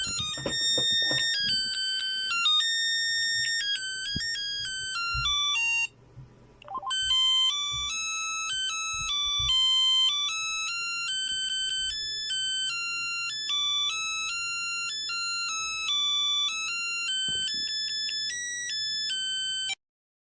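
Smartphone ringtone: a quick electronic melody of bright, short notes. It breaks off about six seconds in, a melody starts again about a second later, and it stops just before the end.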